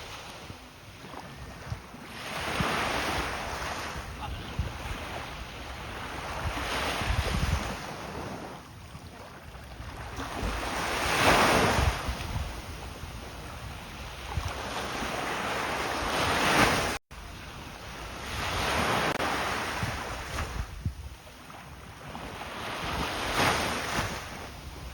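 Sea waves breaking and washing in, each surge swelling and fading every four or five seconds, with wind rumbling on the microphone. The sound drops out for an instant about two-thirds of the way through.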